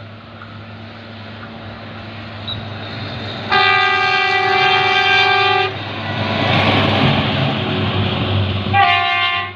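A small yellow rail vehicle approaches and passes close by, sounding its horn twice: one long blast about three and a half seconds in and a short blast near the end. The rumble of its passing builds and is loudest between the two blasts.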